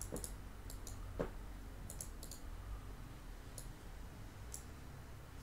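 Computer mouse clicking: a few scattered sharp clicks, some in quick pairs, over a low steady hum, with one soft knock about a second in.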